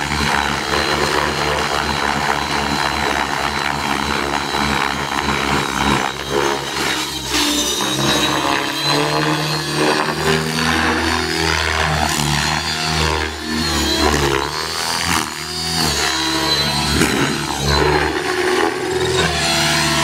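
Align T-Rex 600E electric RC helicopter in aerobatic flight: a steady high whine from the motor and rotor head, with tones that slide up and down in pitch as the rotor is loaded and the helicopter swoops past.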